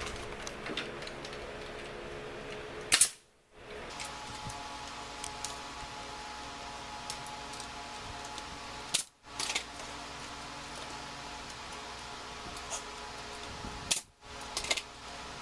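Light knocks and clicks of wooden rack parts being handled and fitted together, over a steady background hum. Three sharp, loud snaps stand out, about 3, 9 and 14 seconds in.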